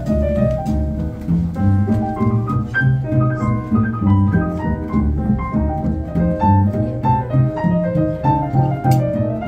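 Traditional New Orleans jazz band playing an instrumental chorus in a swinging four-beat: piano in the lead with quick short runs, over strummed banjo, double bass and light drums.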